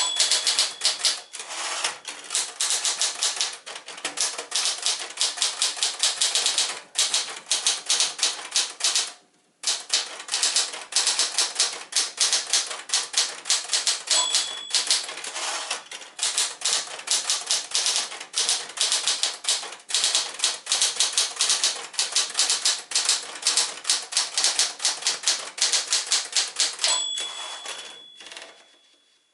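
A 1967 Penncrest Caravelle 10, a Smith-Corona Galaxie-series manual portable typewriter, being typed on in quick runs of keystrokes. The margin bell rings three times: at the start, about halfway and near the end. The typing stops briefly about nine seconds in, and it slows and fades away after the last bell.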